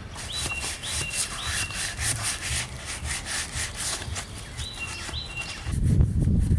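Quick back-and-forth hand scrubbing or sanding strokes on the wood of an old rocking chair, about four strokes a second, with a bird chirping short falling notes a few times. Near the end the strokes stop and a louder low rumble takes over.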